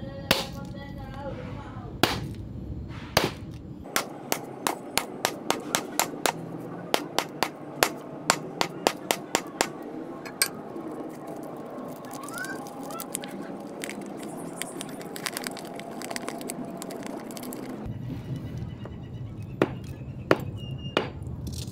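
Wooden mallet striking a sachet of hard lozenges on a stone block, crushing the candy with sharp cracking blows: a few single blows, then a quick run of about three a second, then a few more near the end.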